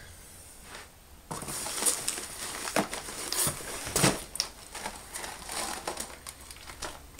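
Packaging crinkling and rustling as snack boxes are handled and pulled out of a cardboard box, a dense crackly rustle with sharp crackles that starts about a second in and dies away near the end.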